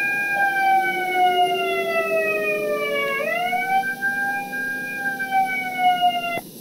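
A wailing alarm siren: a single pitched tone that sinks slowly, jumps back up about three seconds in, then sinks slowly again, with a fainter lower tone rising slowly underneath.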